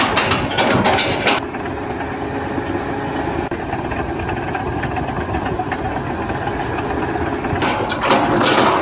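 An engine running steadily, with louder noisy stretches about a second long at the start and near the end.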